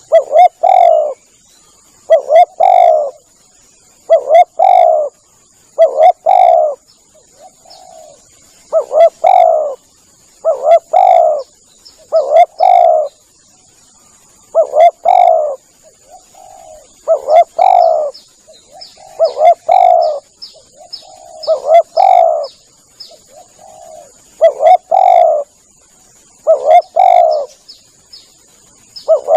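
Spotted dove (tekukur) cooing its call phrase over and over, one loud phrase about every two seconds, as a lure call. A steady high-pitched whine runs underneath, and faint high chirps come in about midway.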